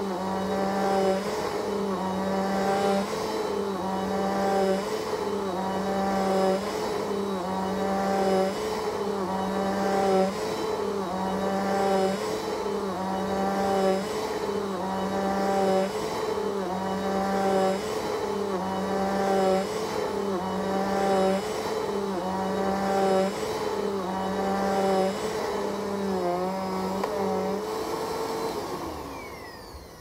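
Bissell upright vacuum cleaner running on carpet, its motor pitch dipping and swelling with each push-and-pull stroke, about one stroke every two seconds. Near the end the motor is switched off and winds down to a stop.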